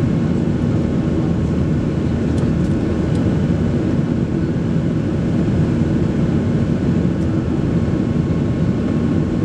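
Cabin noise of a Boeing 737 Next Generation climbing out after takeoff: its CFM56-7B jet engines and the airflow make a steady deep rumble, with faint high steady tones above it, heard from inside the passenger cabin.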